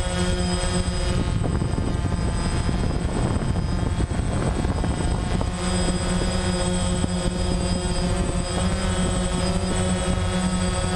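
DJI Phantom quadcopter's electric motors and propellers droning steadily while hovering, heard up close from the drone's own camera. About a second in, the steady hum turns rough and wavering for a few seconds, as the motors change speed, then settles again.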